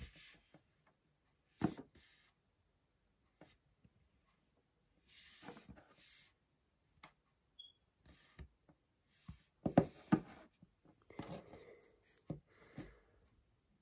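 Small objects being handled: scattered light taps and knocks with a few short rustles, the loudest cluster of knocks about ten seconds in.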